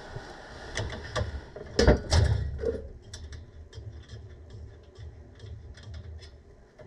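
Handling noises from hand tools and metal parts: a few sharp knocks in the first half, the loudest about two seconds in, then a run of light clicks and ticks.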